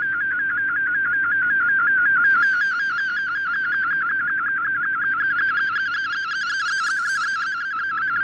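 MFSK picture signal received off a shortwave broadcast: a continuous warbling tone that wobbles in pitch several times a second over faint band noise. This is the analog image data that fldigi is decoding into a colour picture.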